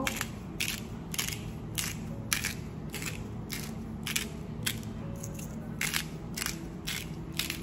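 Salt being ground by hand from a salt grinder, a crunching stroke about every half second as the grinder is twisted.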